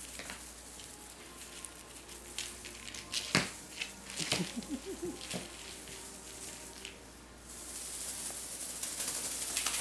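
Crinkly rustling of the tinsel streamers on a Go Cat Peacock Sparkler feather wand as kittens bat and tussle with it, with a few light taps. The rustle thickens into a steadier hiss near the end.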